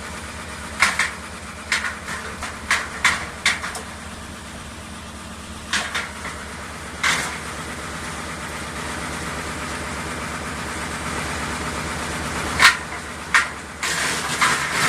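AGT SSBX42S wood chipper running, its engine going steadily underneath, with sharp cracks and knocks at irregular intervals and a stretch of steady hiss from a little past the middle.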